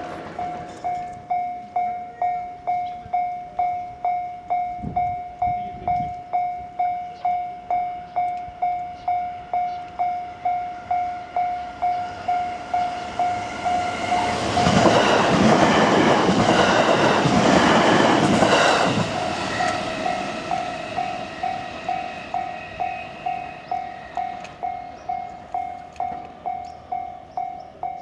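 Japanese level-crossing warning bell dinging steadily, about two strikes a second. An electric commuter train passes through the crossing about halfway in, loudest for some four seconds with wheel clatter on the rail joints.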